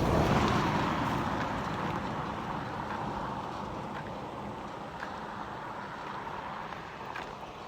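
A vehicle passing close by, loudest at the start and then fading steadily as it moves away.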